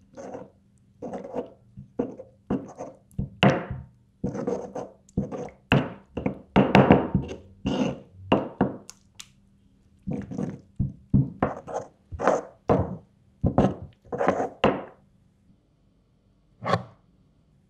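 Stone pestle pounding and grinding red chilies in a granite mortar (cobek and ulekan), in short irregular strikes about two a second, each a dull thunk of stone on stone through wet chili. The strikes stop about 15 seconds in, with one more a couple of seconds later.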